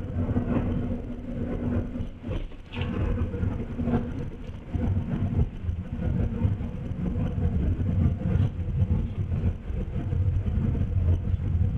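Steady engine drone and road noise heard inside a moving bus, with a low engine hum under it.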